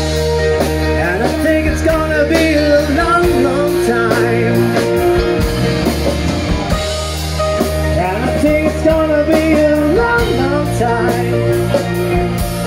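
Live rock band playing: electric guitars, bass and drums, with a singer's long, wavering held notes over the top.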